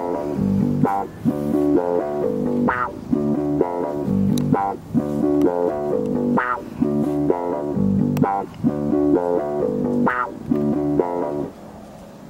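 Background music: a repeating plucked-string pattern over bass, dropping quieter near the end.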